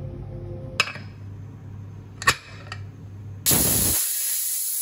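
Two sharp metallic clinks from the aluminium pressure cooker's lid and weight valve. About three and a half seconds in, a loud steady hiss of steam starts venting from the cooker's whistle valve.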